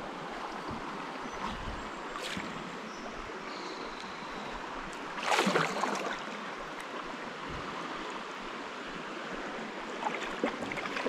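Steady rush of flowing river water around a paddlecraft, with one louder splash about halfway through.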